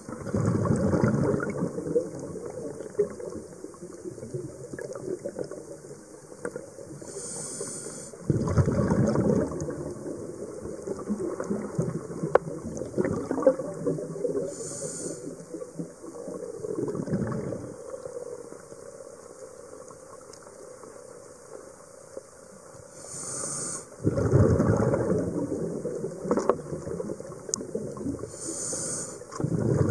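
Scuba diver's regulator breathing heard underwater: a short hiss of inhaling about every seven or eight seconds, each followed by a louder gurgling rush of exhaled bubbles.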